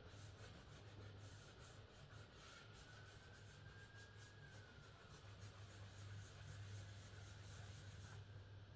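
Faint rubbing of an oil application pad over a finished resin and oak burr surface, working Odie's oil in with quick, even strokes over a steady low hum.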